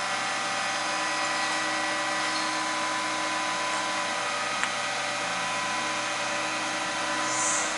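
Steady machinery hum with several fixed whining tones, running unchanged throughout, with one faint click about four and a half seconds in.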